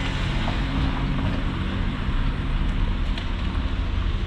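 A steady low engine rumble under continuous outdoor background noise.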